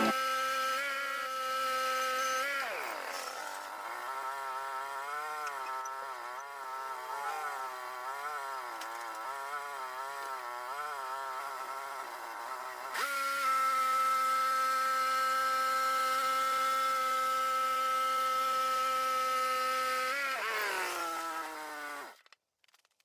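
Sawmill machinery running with a steady high whine. About two and a half seconds in it drops in pitch and wavers for about ten seconds, then comes back steady and louder. Near the end it falls in pitch and stops.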